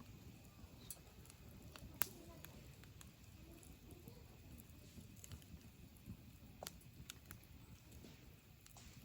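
Wood campfire crackling faintly, with scattered sharp pops and snaps from the burning wood, the loudest about two seconds in.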